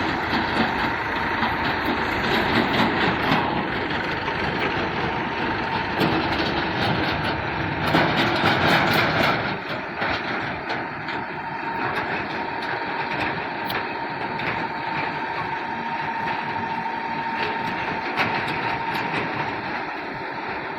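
Mahindra EarthMaster backhoe loader's diesel engine running under load while it digs and loads soil, with a thin steady whine over the engine noise. It swells briefly about halfway through.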